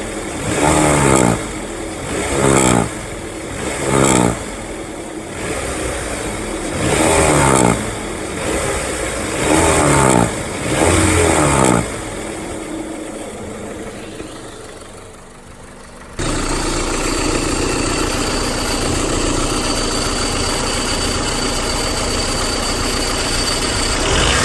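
Honda Civic LX four-cylinder engine blipped about six times in quick revs, then easing back. After an abrupt break it idles steadily, with a thin high whine in the last few seconds. The uploader puts the odd noise on acceleration down to a worn-out timing belt tensioner.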